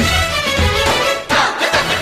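Background music: an instrumental stretch of a Telugu folk-style song.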